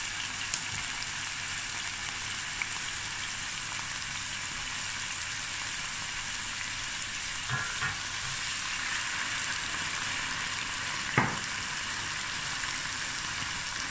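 Chopped onions and garlic with curry leaves and whole spices sizzling steadily in oil and a little water in a stainless steel pan. A few short clicks stand out, two close together just past the middle and a louder one near the end.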